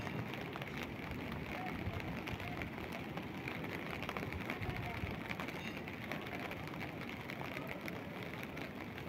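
Steady outdoor background noise with many faint, scattered ticks.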